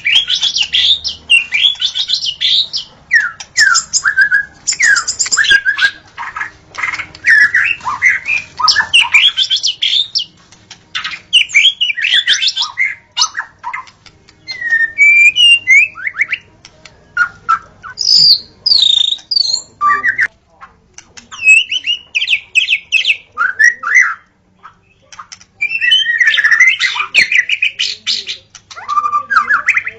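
White-rumped shama singing: fast, varied phrases of clear whistled notes mixed with harsh chattering calls, in bursts separated by short pauses.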